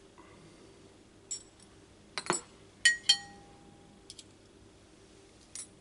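Metal fork and spoon clinking against a shallow china dish of olive-oil sauce as chive strands are fished out: a handful of light, separate clinks, the loudest about three seconds in with a short ring.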